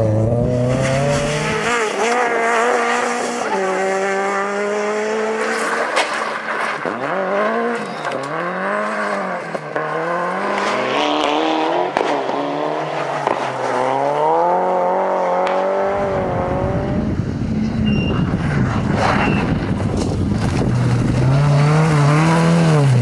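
Rally car engines revving hard, the pitch climbing and dropping again and again with gear changes and lifts off the throttle. The last third turns into a harsher, noisier engine sound.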